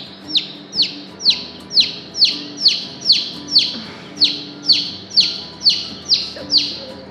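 A two-day-old Polish chick held in a hand, peeping loudly and insistently, about two short falling peeps a second. Steady loud peeping like this is the distress call of a chick taken from its brood mates.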